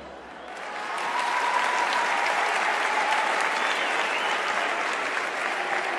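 Crowd applauding, swelling up over the first second and then holding steady.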